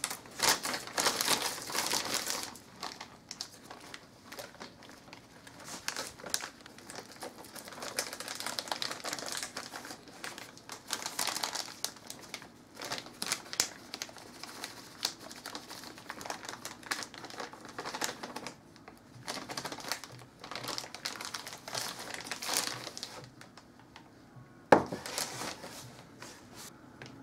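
Resealable plastic flour bag crinkling and rustling in the hands as flour is poured from it into a plastic measuring jug, in irregular bursts. One sharp tap near the end.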